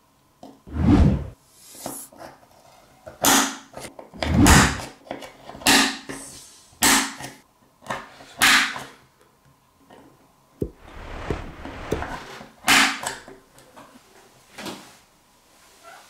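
A string of separate knocks, clicks and scrapes from a steel pick and an old rigging pocket knife being handled on a wooden workbench, with a couple of heavier thuds near the start.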